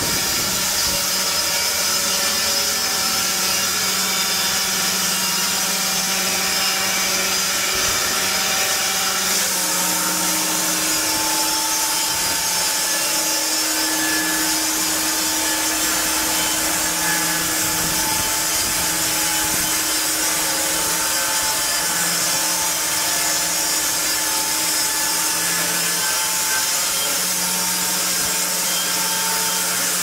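Triumph 900 Premium band sawmill with a 15 kW electric drive running loudly and steadily as its saw head travels along a log, sawing it: a mechanical hum and hiss with a few fixed tones. About ten seconds in, a new, higher tone joins.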